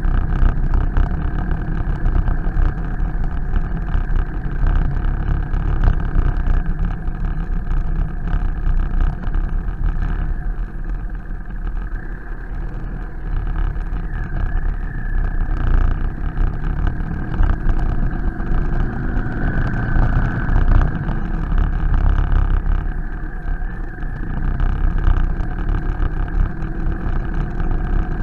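BMW R 1250 GS Adventure's boxer-twin engine running at low speed while the motorcycle climbs a cobblestone street, with a continuous rumble from the tyres on the cobbles.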